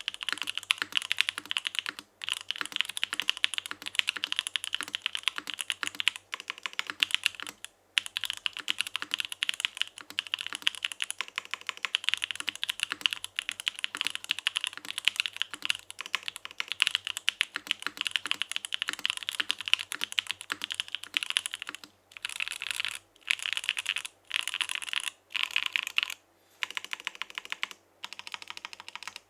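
Fast typing on a Mode Sonnet mechanical keyboard with stock Gateron Cream Soda linear switches, a carbon fiber plate in an isolated top mount and GMK keycaps: a dense stream of keystrokes broken by brief pauses. In the last several seconds it turns into shorter bursts with more gaps between them.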